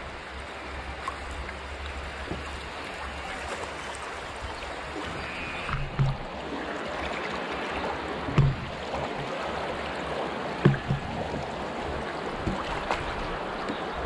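Rushing water of a shallow grade II river rapid, a steady hiss, with three dull knocks about six, eight and a half and ten and a half seconds in.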